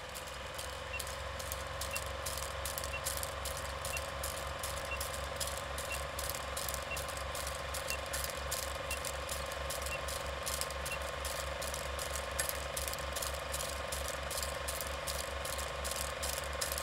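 Old film projector sound effect: a steady hum under a rhythmic mechanical clatter about three times a second. A faint short high beep sounds once a second through the first ten seconds or so, as in a film countdown leader.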